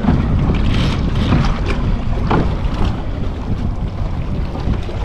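Wind buffeting the microphone over the steady low hum of the boat's idling twin Mercury outboard engines.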